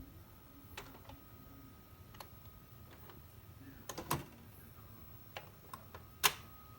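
Scattered clicks and taps on a computer keyboard and mouse, about eight in all. The loudest are a quick cluster about four seconds in and a single sharp click near the end, over a faint steady high hum.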